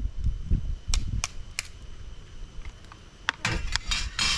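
Cooked crab shell and claws being cracked open by hand: a few sharp snaps spaced apart, then a quick cluster of snaps and a burst of crunching near the end.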